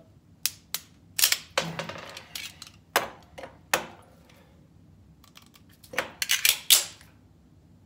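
Sharp metal clicks and clacks of a dry magazine-change drill with an all-steel 9mm 1911 pistol: magazines being released and seated and the pistol handled between them. Single clicks come every half second to a second at first, then a quick cluster of them near the end.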